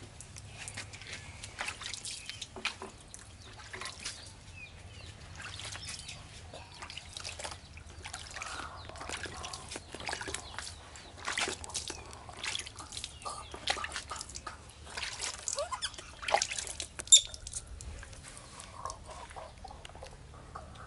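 Water dripping and splashing in a plastic tub as a baby monkey is washed by hand, with many small irregular splashes and drips.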